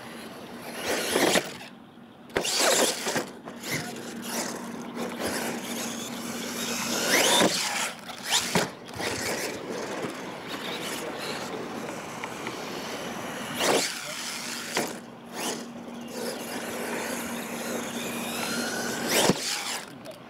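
Radio-controlled monster truck driving on a dirt course: its motor and drivetrain whine rises and falls as it speeds up and slows. Several sharp thumps and knocks come as it hits ramps and lands jumps.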